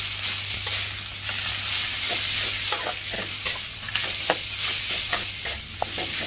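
Minced pork sizzling in hot oil in a metal wok, while a metal spatula scrapes and clinks against the pan, breaking the meat up and stirring it. Steady frying hiss with irregular scraping strokes, some ringing briefly.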